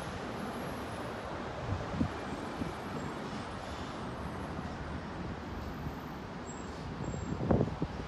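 Steady outdoor background noise at an elevated subway station, with wind buffeting the microphone in several short bursts near the end.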